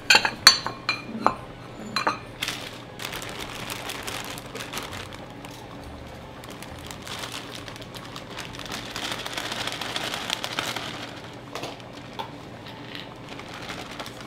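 Ceramic bowls clinking as they are set down on a wooden cutting board, several sharp clinks in the first two seconds. Then a plastic bag rustles for several seconds as chopped lettuce is shaken out of it into the bowls.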